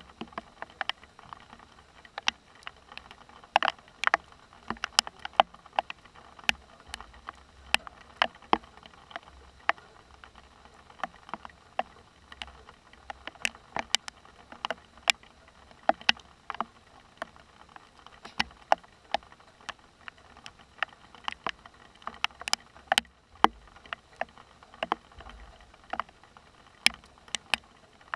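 Scattered heavy raindrops striking close by as a thunderstorm moves in: sharp, irregular ticks, a few each second, over a faint steady hiss.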